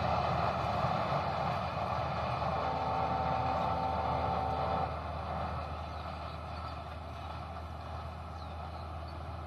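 A train running on the track at a distance, its noise dying down as it moves away. A horn sounds one steady, held note for about two seconds, starting about three seconds in.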